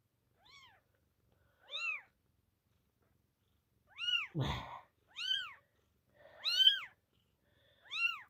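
Newborn Maine coon x elf sphynx kitten mewing: six short, high cries, each rising and falling in pitch, about one every second and a half, louder in the second half. A brief rustling thump comes about halfway through.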